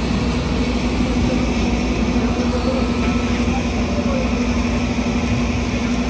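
Heavy diesel machinery running steadily: a continuous low engine drone with a steady hum, and faint voices of a crowd underneath.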